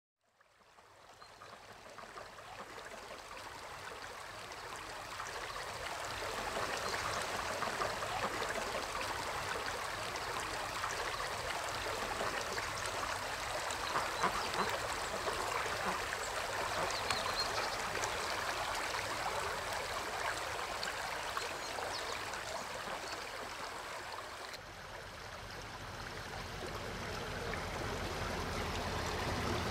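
Creek water running steadily, fading in at the start. Near the end the water sound changes, and a low rumble slowly grows louder beneath it.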